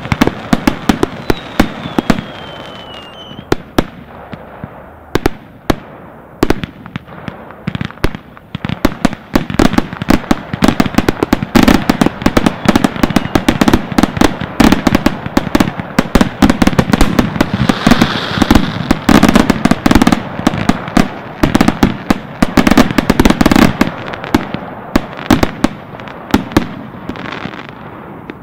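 Consumer fireworks firing in rapid succession: a dense string of sharp bangs and crackling aerial bursts, busiest in the middle and thinning near the end. A brief falling whistle sounds about a second in.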